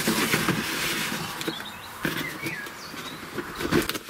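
Cardboard model-railway track box being picked up and handled: rustling and scraping, with a knock about two seconds in and a louder one near the end.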